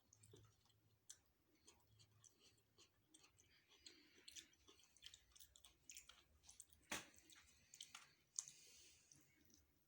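Close-miked chewing of food, with wet mouth clicks and small crunches scattered throughout; a sharper crack comes about seven seconds in.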